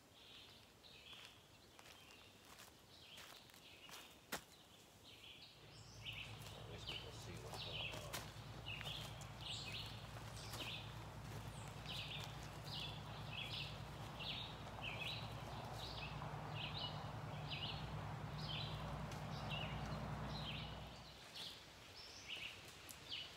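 A bird chirping over and over in woodland, about two short chirps a second. From about six seconds in until near the end, a steady low rumble runs underneath.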